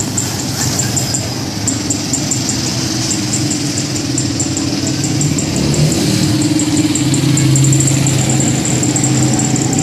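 Street traffic: a motor vehicle engine running close by with a steady hum that grows louder about five seconds in.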